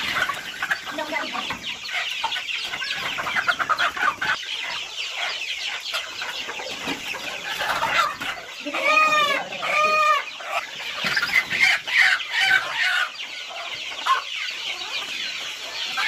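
A flock of native country chickens clucking and squawking in agitation as they are chased and caught by hand. Two loud, drawn-out calls come about nine and ten seconds in.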